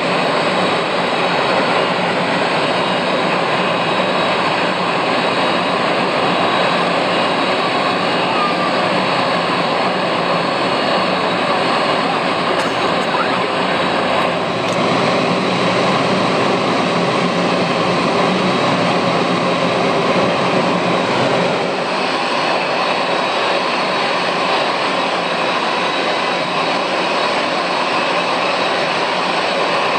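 Boeing 767-300's twin jet engines running at idle, a loud steady whine and rush.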